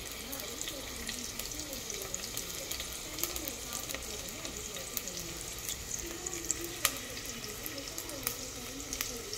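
Food sizzling in a pot on the stove, a steady frying hiss with a few sharp clicks.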